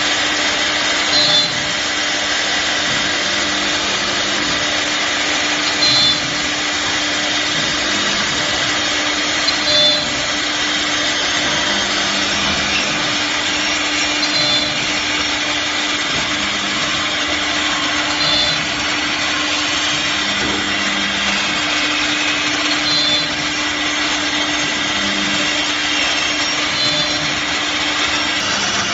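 MC1325 CNC router's electric spindle running at speed with a steady whine while its small bit cuts into plywood, with a brief louder burst every four to five seconds as the bit works the sheet.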